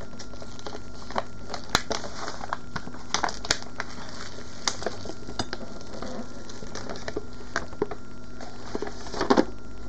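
Crinkling and crackling of a diamond painting canvas and its protective cover sheet being handled, lifted and folded back, with many scattered sharp clicks; a louder flurry of crackles near the end.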